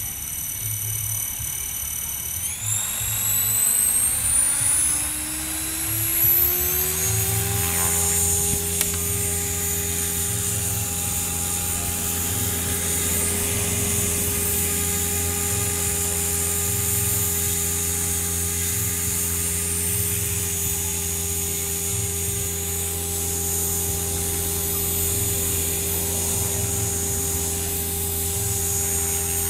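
Align T-Rex 500 electric RC helicopter spooling up. The motor's high whine and the rotor's hum climb in pitch for about four seconds, then hold steady as it hovers.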